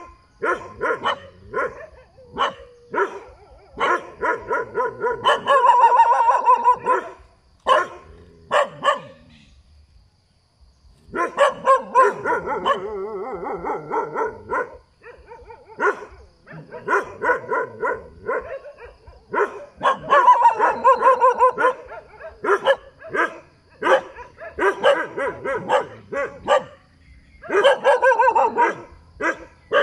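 Dog barking over and over, sometimes single barks and sometimes runs of quick barks, with a short break about ten seconds in.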